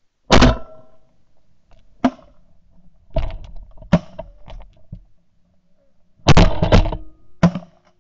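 Shotgun blasts fired at Canada geese coming in low: a string of sharp, loud reports about one to two seconds apart, with a dense burst of shots and geese honking around two thirds of the way through.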